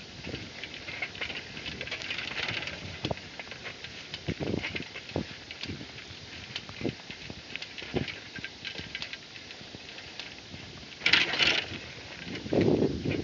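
Horse walking under a rider: irregular hoof knocks, with creaks from the worn leather saddle and tack. There is a louder rustling scrape about eleven seconds in.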